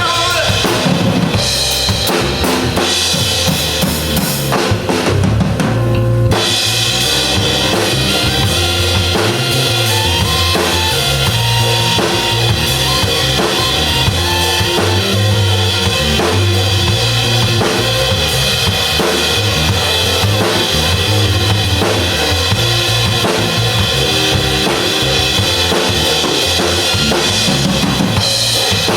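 Live pop band playing an instrumental passage without vocals, led by a drum kit with bass drum and snare over bass and sustained chords. About six seconds in the sound gets fuller and brighter as the whole band comes in.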